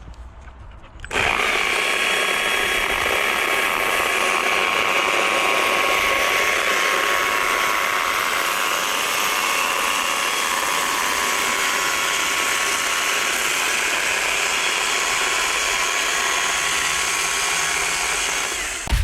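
A handheld electric power tool starts about a second in and runs steadily at constant speed, a high whine over a rushing noise, until just before the end.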